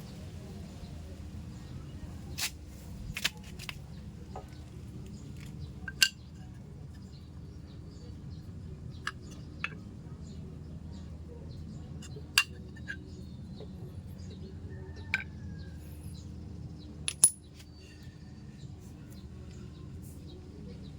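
Metal parts and tools clinking and tapping: about a dozen sharp, scattered metallic clicks over a steady low hum.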